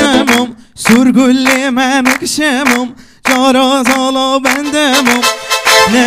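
Kurdish wedding dance music: an ornamented, wavering melody over a steady drone and a regular beat, breaking off briefly twice, about a second in and about three seconds in.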